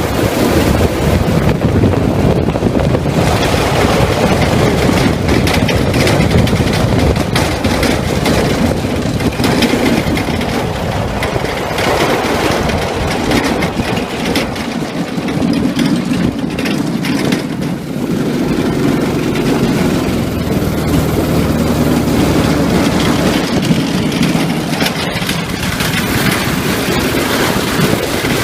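A go-kart's Honda GX160 single-cylinder engine running loudly and continuously, its pitch shifting with the throttle and settling into a steadier note for a while in the middle.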